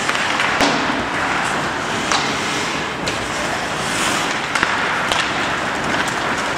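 Ice hockey play on an indoor rink: skate blades scraping and carving the ice in a steady hiss, with a few sharp clacks of sticks and puck.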